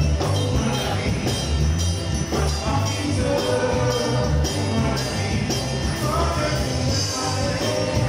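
Live gospel praise-and-worship music: several singers in unison over acoustic guitar, electric guitar and keyboard, with deep pulsing bass notes and a steady beat with cymbal shimmer.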